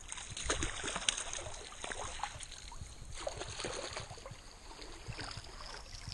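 Water splashing irregularly as a hooked trout thrashes at the surface of a shallow creek and a landing net is dipped in to scoop it.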